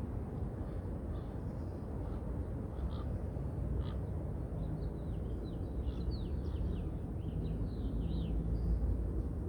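Small birds chirping over a steady low rumble of wind and distant city noise. Scattered single chirps give way about halfway through to a quick run of short falling chirps.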